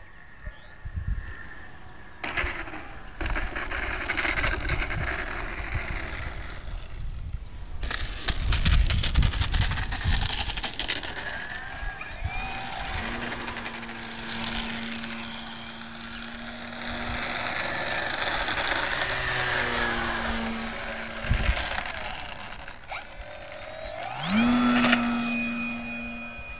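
Wind buffeting the microphone, then the steady whine of an FMS PT-17 Stearman RC biplane's electric motor, which rises sharply in pitch near the end as the throttle is opened.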